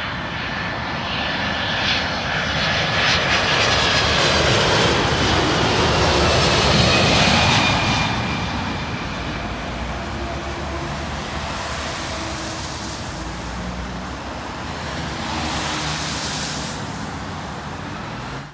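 Boeing 767-300ER jet airliner on final approach passing low overhead. Its engine whine and rumble build to a peak about seven seconds in and drop in pitch as it goes by, then settle to a steadier, lower rumble as it reaches the runway.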